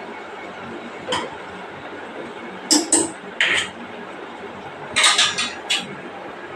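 Metal spoon clinking and knocking against a steel cooking pot: single knocks about 1, 3 and 3.5 seconds in, then a quick run of clinks near the end.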